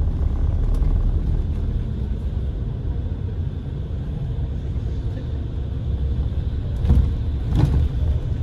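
Steady low rumble of a road vehicle in motion, with two short louder bumps about seven seconds in.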